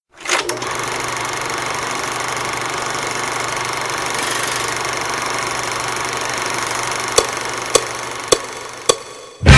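Intro of a rock backing track: a steady buzzing hum with hiss. Near the end come four evenly spaced clicks about half a second apart, like a count-in, and the band comes in loud just after.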